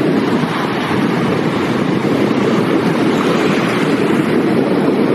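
Wind buffeting the microphone, a steady loud rushing rumble, with waves washing in the shallows beneath it.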